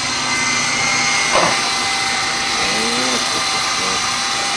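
Double Horse 9081 three-channel RC helicopter in flight, its small electric motors and rotors running with a steady whine and whir. A short knock sounds about a second and a half in.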